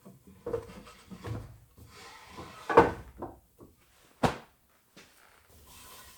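Irregular wooden knocks and bumps as a hardwood drawer is handled, the loudest about three seconds in and a sharp click a little after four seconds.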